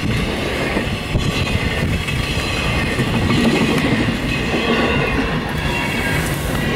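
Norfolk Southern intermodal freight train's container and trailer cars rolling past at speed, a steady rumble with the wheels clacking over the rail joints.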